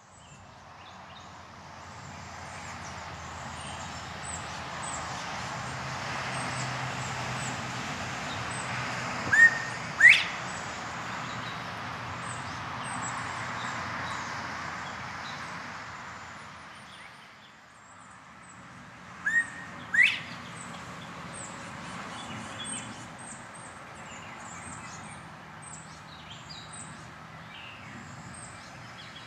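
Male northern bobwhite quail giving its two-note 'bob-white' call twice, about ten seconds apart: a short low whistle followed by a loud, sharply rising whistle. Faint high chirps and a steady outdoor hiss lie beneath.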